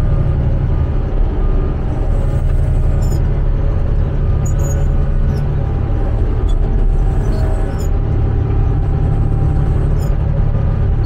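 Motor grader's diesel engine running steadily as the machine grades, with a few faint ticks and rattles over the low engine sound.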